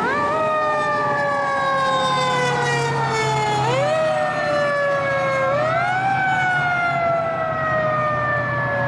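Fire engine siren with a low steady rumble beneath it. The siren winds up quickly three times, near the start, about halfway and a little after, and after each rise it falls slowly in pitch.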